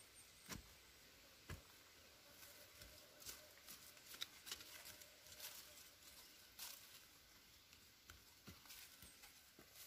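Faint, irregular scrapes and taps of loose soil being dug and scraped by hand with a wooden-handled tool, over near-silent background.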